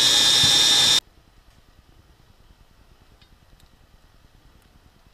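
Wire-feed (MIG) welder's arc running as a loud, steady hiss with a faint whine, cutting off abruptly about a second in. After that only faint room tone with a few light clicks.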